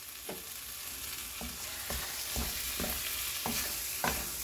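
Stir-fried squid and vegetables being tossed with spatulas in a wok, with short scraping strokes against the pan roughly every half second starting about a second in. Under them the still-hot pan keeps up a steady sizzle after the heat is off.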